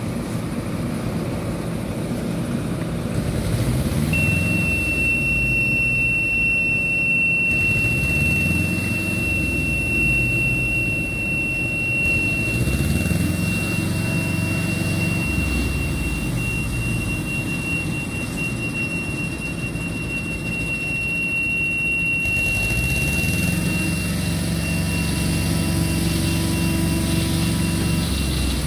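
Engine of a heavy-haulage multi-axle transporter running as it moves slowly under load, its revs rising and falling several times. A steady high-pitched whine sounds above it from about four seconds in, fading near the end.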